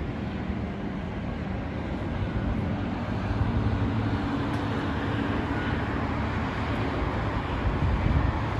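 Strong wind buffeting the microphone, a steady low rumble.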